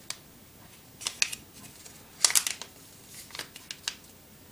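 Coloured paper being folded and creased by hand: short crisp rustles and crackles, the loudest a burst about two seconds in.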